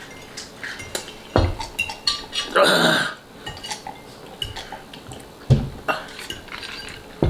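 Cutlery clinking and scraping against bowls while noodles are eaten, with a couple of dull knocks and a short noisy burst about three seconds in.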